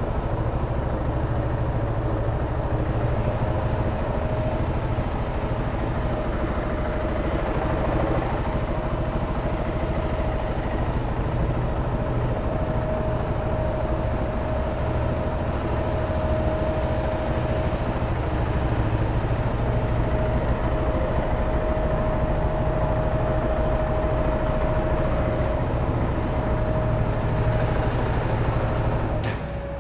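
KTM 690 Enduro R's single-cylinder engine idling steadily.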